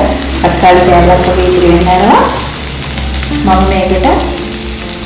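Shallots, garlic, lemongrass and curry leaves sizzling in oil in a non-stick pan while a wooden spatula stirs them, with background music over it.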